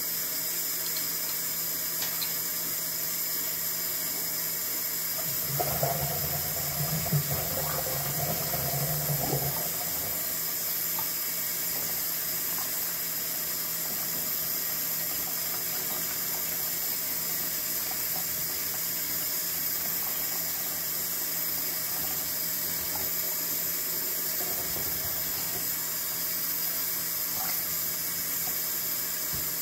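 Kitchen faucet running into a stainless steel sink, the stream splashing over a raw whole chicken being rinsed under it. The water gets louder and rougher for about four seconds, starting some five seconds in.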